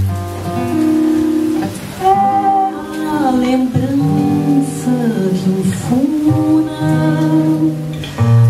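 A woman singing a slow melody with held, gliding notes, accompanied by a nylon-string classical guitar playing low bass notes and chords.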